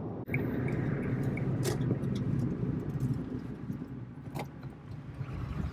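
Steady low rumble of a car's engine and road noise heard inside the cabin as the car drives up to a motorway toll booth, with two sharp clicks.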